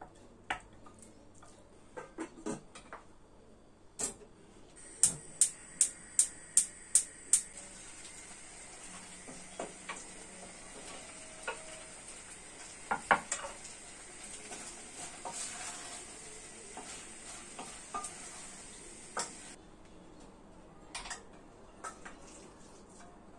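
Kitchen cooking sounds: utensils clinking against pots and dishes, with a quick run of six sharp clicks a few seconds in. A steady sizzle-like hiss runs for about fifteen seconds, then cuts off.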